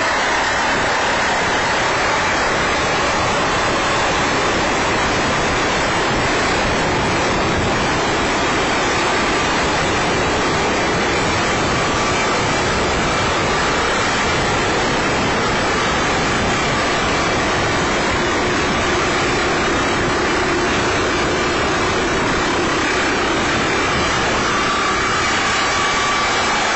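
MD 902 Explorer NOTAR helicopter descending and landing. Its main rotor and turbines make a loud, steady rushing noise with a faint high whine over it.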